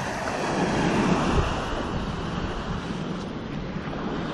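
Ocean surf breaking and washing up a sand beach, with wind on the microphone; the wash swells about a second in.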